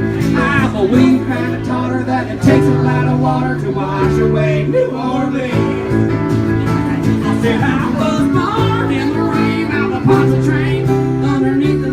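A band playing a country song live, with guitar and singing.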